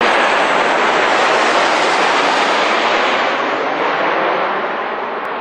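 Wide-body jet airliner passing low overhead on approach with its landing gear down: a loud, even jet roar that slowly fades and grows duller as the aircraft goes by.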